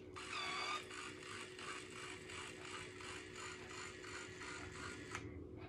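Babyliss Lasting Waves motorised hair styler running as it draws a section of hair in: a brief whine, then a quiet, even ratcheting rattle of about four clicks a second. It stops with a click about five seconds in.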